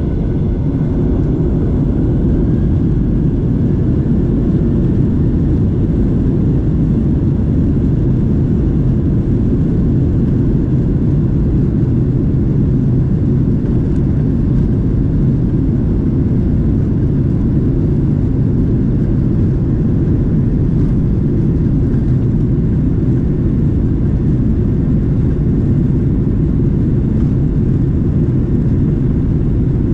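Airliner cabin noise in flight: a steady, loud, low rumble of the jet engines and airflow.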